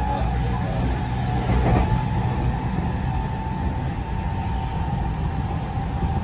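JR West 207 series commuter train running at speed, heard from inside the carriage: a steady low rumble of wheels and running gear with a steady thin whine. It swells briefly about two seconds in.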